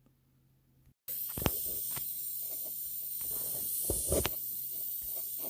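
Near silence, then, after a sudden change about a second in, a steady high hiss with a faint low hum and a few light taps and clicks of hand work on a PCM circuit board being soldered.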